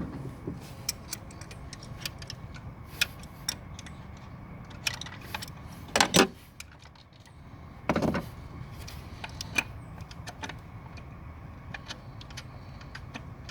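Hand tools and small metal parts clicking and clinking while a Chevy TBI throttle body is unbolted, with two louder clatters about six and eight seconds in, over a low steady hum.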